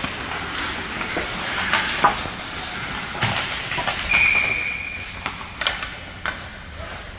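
Ice hockey play heard in a rink: skates scraping, with sharp clacks and knocks of sticks and puck against the boards. About four seconds in, a referee's whistle is blown once, a high steady tone lasting just under a second.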